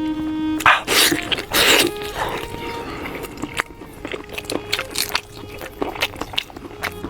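Close-miked eating of sheep's head meat: wet bites, chewing and lip smacks, with two louder slurping or tearing noises in the first two seconds, over faint background music.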